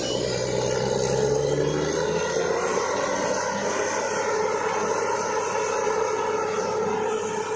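A heavy engine running at a steady drone that cuts in suddenly, typical of the machinery at a borewell drilling site.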